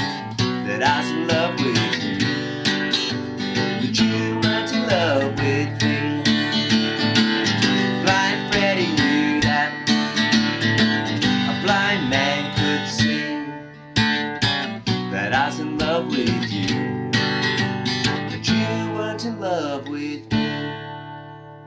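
Acoustic guitar strummed in a country rhythm, the instrumental close of a honky-tonk song. The playing breaks off briefly about two-thirds of the way through, and near the end a last strum rings out and fades.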